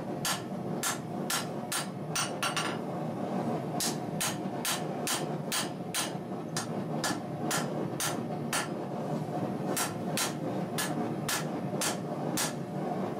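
Hand hammer striking a red-hot steel knife blade on an anvil, forging it: even blows at about three a second, with short breaks about three seconds in and about nine seconds in. A steady rushing noise runs beneath.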